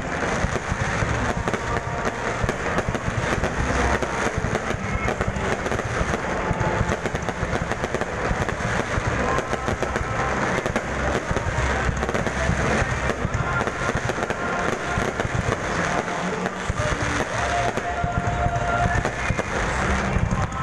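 Aerial fireworks display: a dense, continuous run of bangs and crackling as shells burst overhead one after another.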